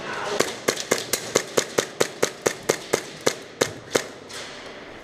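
Airsoft gun firing rapid semi-automatic shots, about four or five sharp cracks a second, stopping a little before the end.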